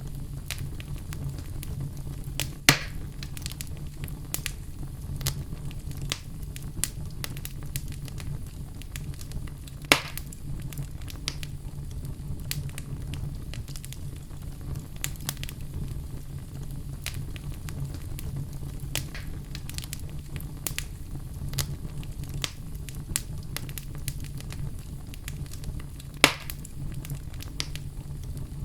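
Wood fire burning in a fireplace: a steady low rumble of flame with constant irregular crackles and three sharper, louder pops, near the start, about a third of the way in and near the end.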